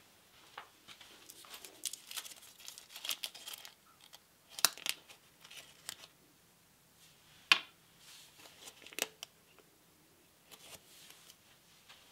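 A crinkly wrapper being unwrapped by hand: a quick run of rustling crackles, then a few separate sharp crackles, the loudest a little past halfway.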